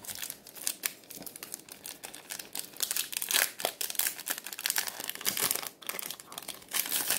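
A Pokémon TCG Shining Fates booster pack's foil wrapper crinkling and tearing as it is ripped open, a dense, irregular run of sharp crackles.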